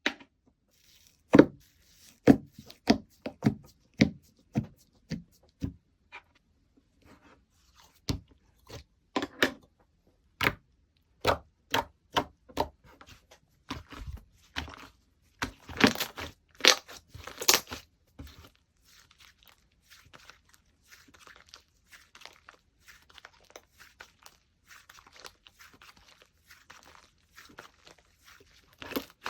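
Slime being squished and poked by hand, making a string of sharp pops and clicks, with a louder, denser run of crackling pops in the middle and fainter crackles near the end.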